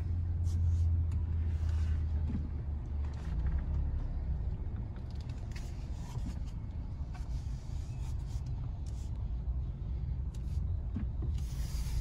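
Low, steady rumble of a car's engine and tyres heard from inside the cabin while driving slowly, heaviest in the first few seconds, with a few faint clicks.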